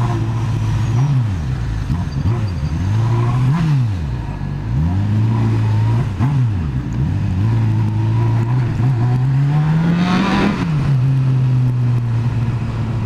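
Motorcycle engine heard from the rider's seat, revved up and down in several short throttle blips while riding, then a longer climb in revs that drops back shortly before the end.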